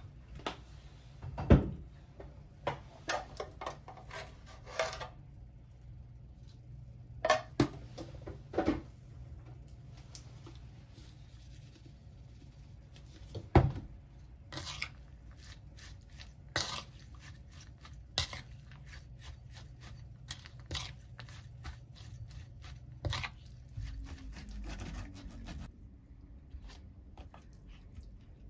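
Kitchen handling noises while dressing julienned carrots: irregular clicks, taps and knocks of a metal measuring spoon, bottles and seasoning containers against a plastic bowl and the counter, two of the knocks much louder than the rest. A faint steady low hum runs underneath.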